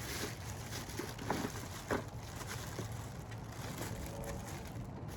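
Soft handling noises as pressure washer parts are picked up and moved, with two brief knocks about a second and two seconds in, over a steady low hum.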